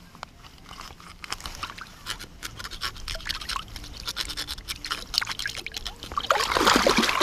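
Folding knife cutting and scraping through a pike's flesh and skin in shallow river water, a run of short wet clicks and scrapes. Near the end a louder splash and slosh as the fish is moved through the water.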